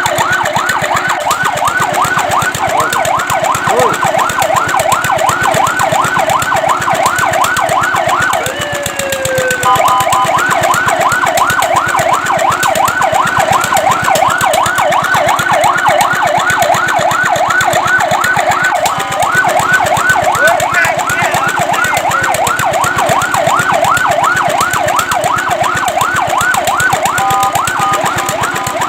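Fire truck siren in a fast yelp, sweeping up and down about three times a second. About eight seconds in it breaks off briefly with a falling tone, then picks the yelp up again.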